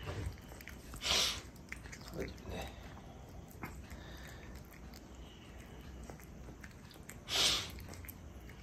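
Kitten chewing wet food from a stainless steel bowl, quiet and steady, with small scattered clicks. Two short breathy bursts stand out, about a second in and near the end.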